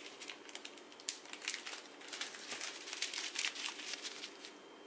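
Small plastic zip-lock bags of diamond-painting drills crinkling as they are picked up and handled: a busy run of quick crackles that stops shortly before the end.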